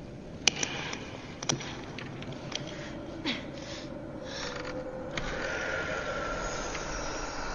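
Film sound effects around a heavy ornate book: two sharp clicks, a few soft breathy rustles, then a faint sustained eerie tone with a low hum.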